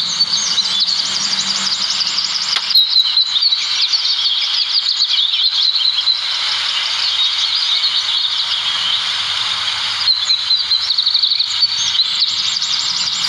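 Many birds chirping and trilling together in a dense, unbroken chorus of quick, high repeated notes.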